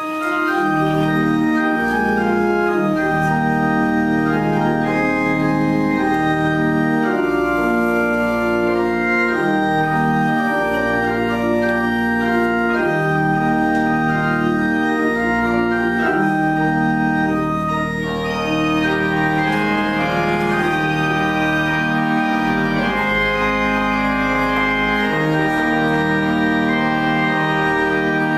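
Church pipe organ playing slow, sustained chords over a deep pedal bass. It comes in suddenly at full volume and stays loud, easing briefly about eighteen seconds in.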